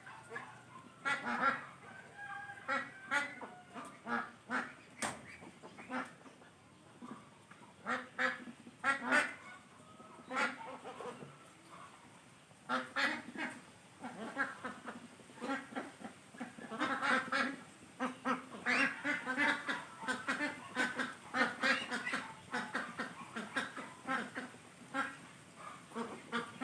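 Repeated bird calls, many short honk-like cries coming in clusters with brief pauses between them.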